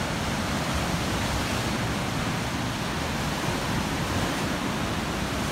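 Rough surf breaking over shoreline rocks: a steady, even rush of crashing waves and churning foam.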